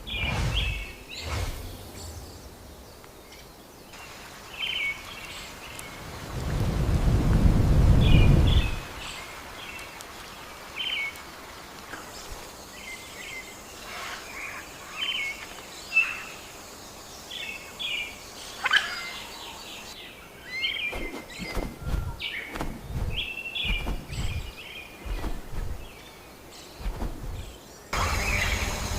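Rainforest ambience with scattered short bird chirps and calls. About six seconds in, a low rumble of thunder swells for about three seconds and dies away, and later a series of short low thuds sounds.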